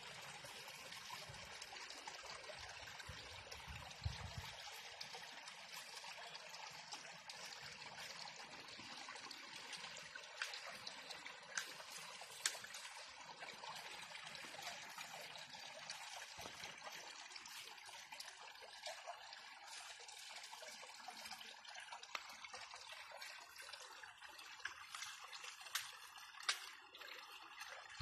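Goats grazing in tall grass: a low, steady rustling hiss, broken by a few sharp snaps.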